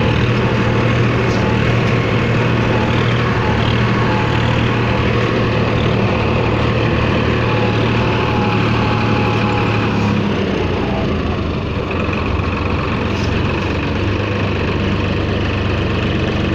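Swaraj 963 FE tractor's three-cylinder diesel engine running steadily, heard close from the driver's seat. Its note drops slightly about ten seconds in.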